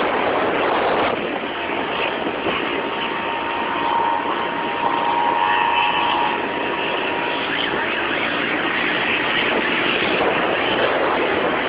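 Small motorcycle engine running on the move as the bike is ridden on its rear wheel, under a steady rush of road and air noise, with a faint steady whine through the middle.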